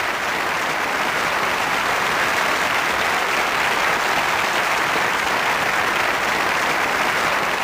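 Large arena audience applauding steadily after a song, a dense even wash of clapping.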